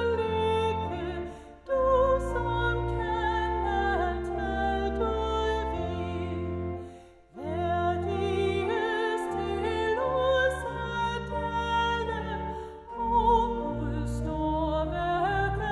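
Pipe organ accompanying a solo woman's voice singing a Danish hymn in slow phrases, the organ's held chords under the sung line, with brief breaks between phrases.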